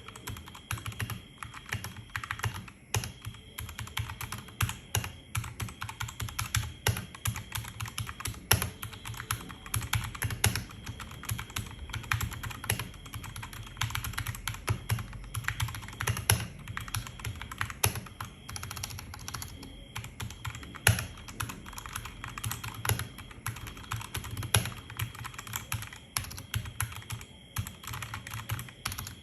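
Typing on a Royal Kludge RK G68 mechanical keyboard with Gateron Brown tactile switches: a continuous, fast run of key clacks, with an occasional louder strike.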